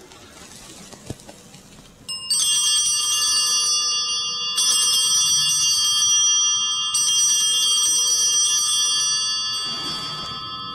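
Altar (Sanctus) bells rung three times, about two and a half seconds apart, each ring a bright cluster of high tones that hangs on and fades out near the end. They mark the elevation of the consecrated host at the consecration of the Mass.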